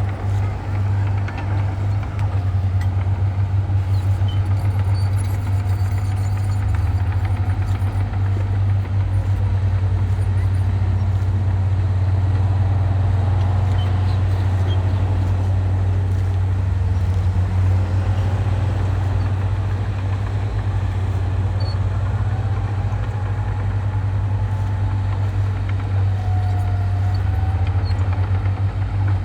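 Heavy earthmoving machine's diesel engine running steadily with a deep, even hum.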